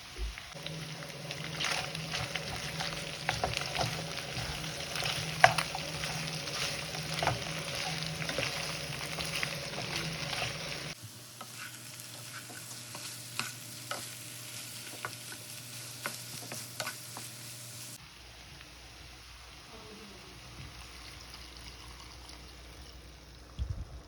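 Pork frying in a pan, sizzling, with sharp clicks and knocks as it is stirred. The sizzle drops abruptly to a quieter level about halfway through, and drops again a few seconds later.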